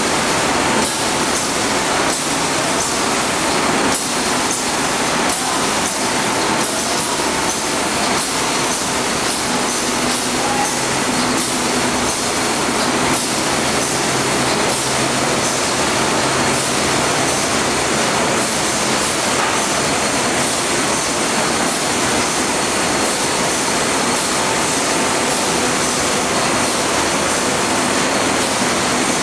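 PE protective film coating machine running: a loud, steady mechanical noise from its rollers and drives, with a few faint steady whines on top.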